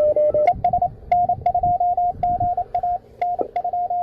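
Morse code (CW) signals from a ham radio receiver: a steady beeping tone keyed on and off in dots and dashes. A second, slightly lower-pitched CW signal overlaps it near the start.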